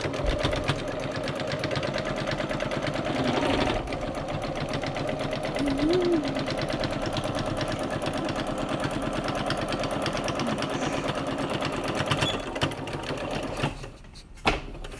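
Electric sewing machine stitching a seam through folded cotton fabric, running steadily with rapid, even needle strokes. It stops about a second before the end, followed by a single click.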